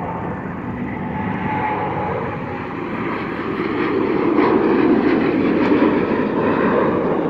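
Boeing 787-9's twin GEnx-1B turbofans at takeoff thrust as the jet lifts off: a steady jet roar that grows louder about four seconds in.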